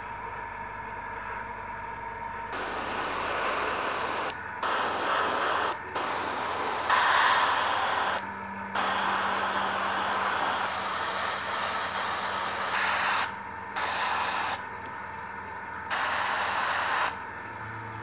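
Airbrush spraying paint in repeated hissing bursts of one to four seconds each, starting and stopping sharply. A steady hum runs underneath.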